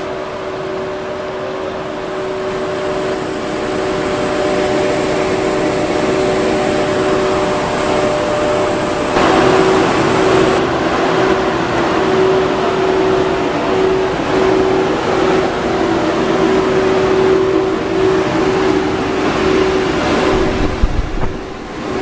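Steady whirring hum of a stationary JNR Class EF81 electric locomotive, its cooling blowers and auxiliary machinery running with a constant droning tone. It grows louder about nine seconds in.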